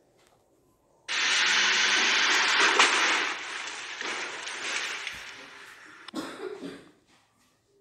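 Tata Punch crashing into a deformable barrier in a 64 km/h frontal offset crash test. A sudden loud impact about a second in is followed by a noisy rush that lasts a couple of seconds and fades, and a second, shorter crash comes about six seconds in.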